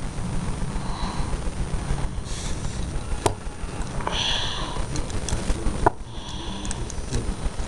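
Sniffing and breathing close to the microphone, three short noisy puffs, with two sharp clicks as small metal and plastic toy parts are handled.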